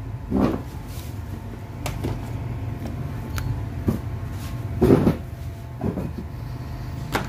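Steady low hum with a few short, dull knocks and faint clicks.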